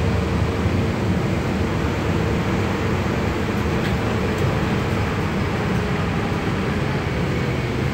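Steady running noise inside a Solaris Urbino 12 IV city bus on the move, engine and tyre noise on a wet road.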